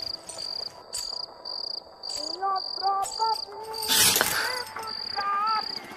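Crickets chirping in a steady pulsing rhythm, about two high chirps a second. There are a few short gliding notes over them and a brief swish about four seconds in.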